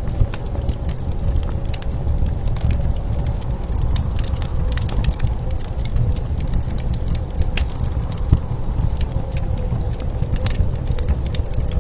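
Wood fire crackling with frequent sharp pops over the steady low rumble of blizzard wind, with a faint wavering whistle.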